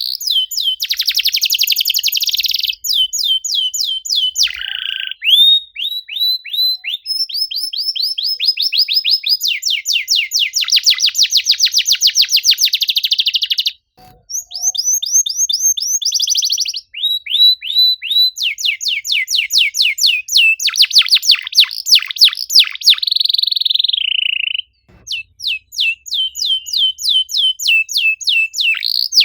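Domestic canary singing a long, rapid song of fast repeated trills and chirps, broken by short pauses about halfway through and near the end.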